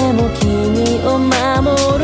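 Pop music with a steady beat: deep kick drums and sharp snare hits under melodic synth parts.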